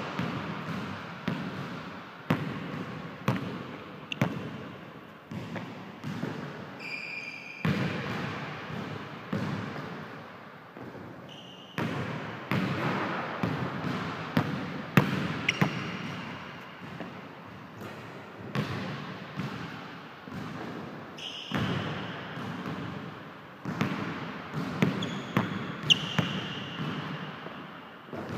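Basketball dribbled and bounced on a hardwood gym floor, each bounce echoing in the large hall, with a few short sneaker squeaks.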